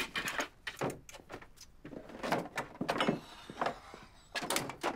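Someone rummaging through a wooden bookcase: objects on the shelves shoved, slid and knocked about in a quick, irregular run of knocks and scrapes.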